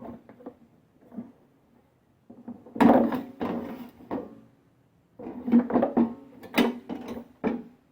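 Knocks and rattles of hand tools and metal engine parts being handled on a push mower engine, in two bursts: one about three seconds in and a longer one from about five seconds.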